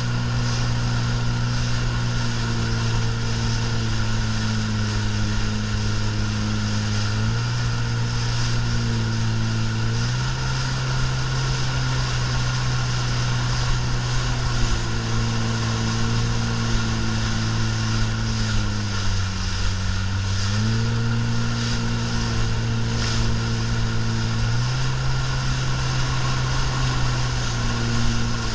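Yamaha marine engine running under way, a steady drone whose pitch steps up and down a few times as the throttle shifts, dipping briefly about two-thirds of the way in, with the hiss of water rushing past the hull.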